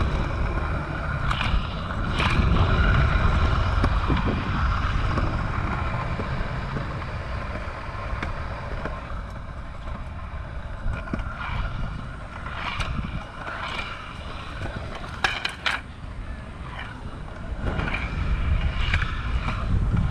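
Kick scooter wheels rolling over concrete skate-park ramps, a steady rumble heard through wind buffeting the helmet-mounted microphone, loudest a few seconds in. A few sharp clicks about three-quarters through, from the wheels and deck knocking over seams.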